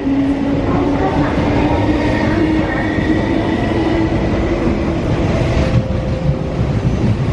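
MTR East Rail Line MLR electric multiple unit pulling out and accelerating past at close range. A traction whine rises slightly in pitch over the first few seconds, above the steady rumble of wheels on the rails.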